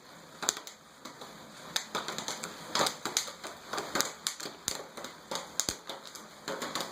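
Popcorn kernels popping in a pan held over a flame: irregular sharp pops, several a second.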